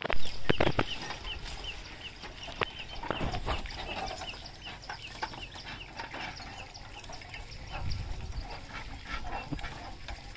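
A bird calls with a rapid string of short, high, falling notes, about two a second, fading out about halfway through. Under it come scattered knocks and rattles from the loaded bullock cart rolling over rough ground, with a loud bump at the very start.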